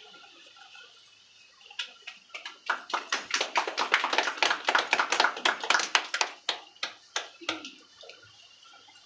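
A small group clapping hands, starting about two seconds in, growing quickly, then thinning out and stopping shortly before the end.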